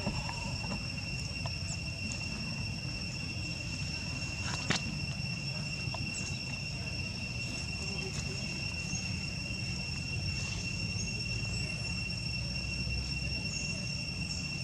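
Steady high-pitched insect drone, one unchanging tone, over a low outdoor rumble, with a single sharp click a little under five seconds in.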